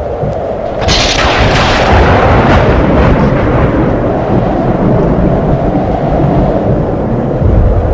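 Thunderstorm: a close thunderclap cracks about a second in and rolls on as a long rumble, over a steady low rumble, with another boom of thunder starting near the end.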